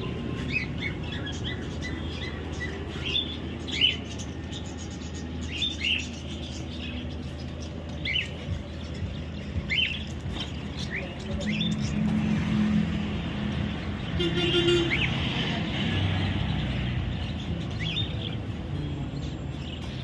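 Small birds chirping: short, high chirps scattered irregularly, over a low steady background rumble.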